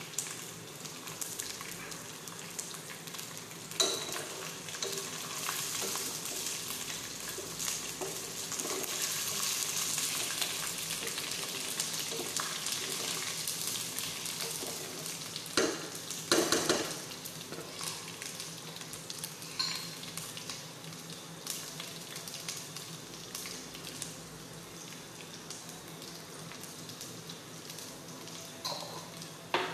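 Sliced onions and whole spices with bay leaves sizzling in hot oil in a pot, a steady frying hiss. There are a few sharp knocks against the pot, two of them close together about halfway through.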